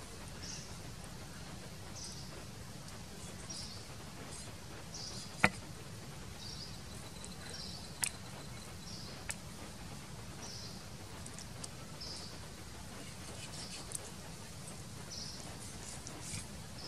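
A few sharp knife taps on a wooden chopping board while meat is sliced, the loudest about five and a half seconds in. Behind them, steady low background noise and a faint high chirp repeating about every second or so.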